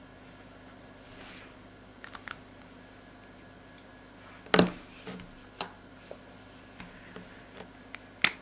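Clicks and taps of brush-tip felt-tip markers being handled as one is put down and another picked up, with two sharp, loud clicks, one about four and a half seconds in and one near the end, and a few fainter taps between them.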